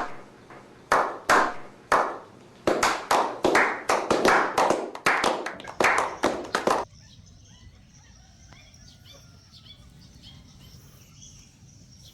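A quick, irregular series of sharp slaps, about two dozen over roughly seven seconds, ending abruptly. Faint bird chirps follow in the quieter stretch.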